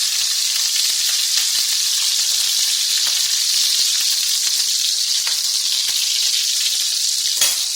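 King prawns frying in hot oil in a pan: a steady sizzle with small crackling spatters, and one sharp click near the end.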